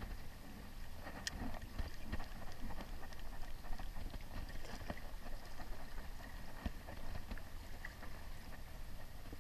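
Small waves lapping and splashing against the rocks at the water's edge, over a steady low rumble, with a few sharp clicks, the loudest about a second in.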